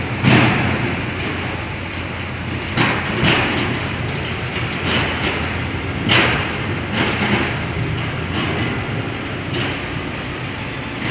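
Heavy earthmoving machinery running steadily, with loud metallic clanks and knocks every second or two as the machines work.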